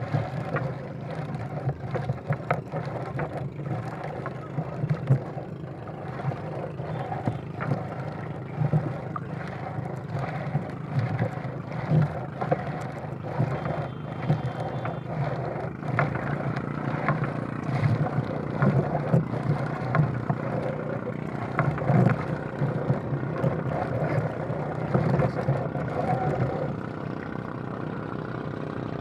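Small motorboat engine running, with frequent irregular knocks and clatter over it.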